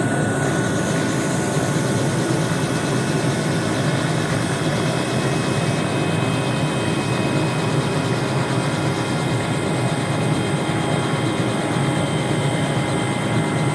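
Helicopter running close by: steady, loud rotor and engine noise with a thin high-pitched whine held through it.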